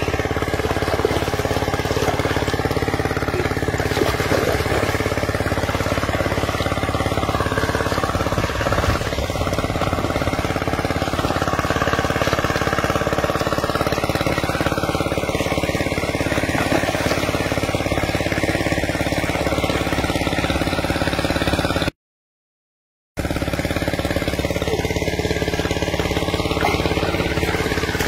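An engine running steadily at constant speed, with a brief cut to silence about three-quarters of the way through.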